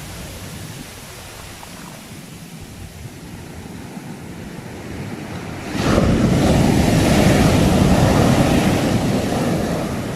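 Sea waves: a low wash of surf, then a wave breaks suddenly about six seconds in, its loud rush of water holding for a few seconds before easing off near the end.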